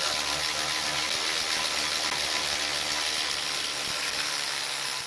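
Cordless electric ratchet running steadily under light load, spinning the 18 mm upper camber arm bolt out of the rear knuckle. It stops abruptly near the end.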